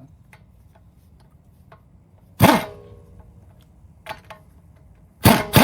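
Air impact wrench running lug nuts through a torque-limiting extension in short bursts: one about two and a half seconds in and two quick ones near the end, each with a metallic ring, and a couple of light clicks in between.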